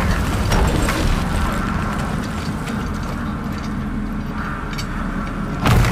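A steady low rumble with scattered faint clicks, and a sudden loud boom-like hit near the end.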